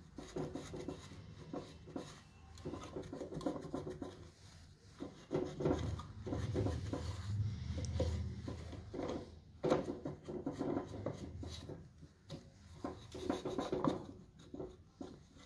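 Hand work on an old magnetic contactor: irregular rubbing and scraping, with many light clicks and knocks as its parts are handled, and a sharper knock just before the last third.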